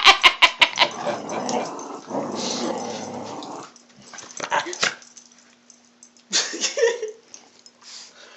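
Dogs playing rough: a fast run of barks that dies out about a second in, then a few seconds of steady growling, then scattered short dog noises with a brief yip near the end.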